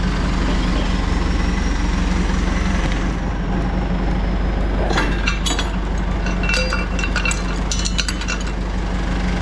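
An engine idling steadily. From about five seconds in, metal clinks and rattles over it several times.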